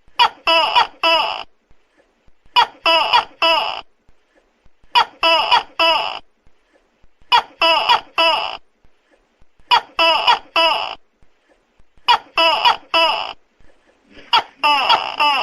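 Tokay gecko calling loudly: bursts of three or four short, pitched syllables, repeated about every two and a half seconds.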